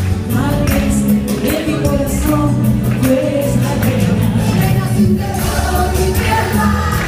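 Live music: several women singing together over a band, with steady percussion underneath.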